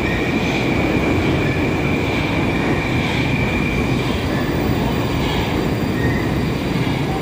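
Moscow Metro Moskva-2020 train moving along the station platform: a steady rumble of wheels on rails with a thin, steady high whine above it.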